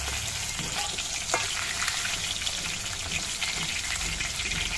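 Hot mustard oil sizzling and crackling in a kadai as pieces of fried aar fish are lifted out with a steel spatula. A few sharp clicks of the spatula against the pan.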